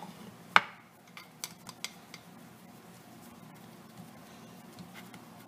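Kitchenware handled on a table: a sharp knock about half a second in as a plate or wooden board is set down, then a quick run of lighter clicks. After that come faint taps as fingers press a ball of dough flat on a wooden board.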